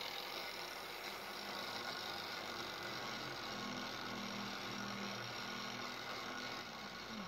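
Electric angle grinder running steadily with an abrasive disc worked along the thin steel blade of a cane sword, taking off rust.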